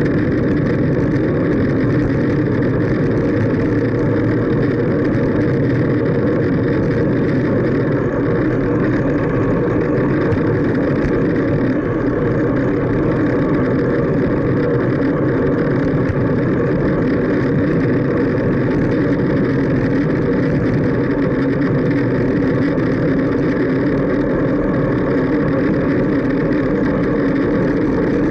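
Steady wind and road noise on a bicycle-mounted camera's microphone while riding a fixed-gear bike on asphalt, an even rushing drone with no breaks.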